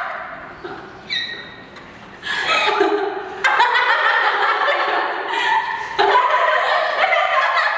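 Several young women laughing together: softer chuckles at first, swelling into louder shared laughter from about three seconds in.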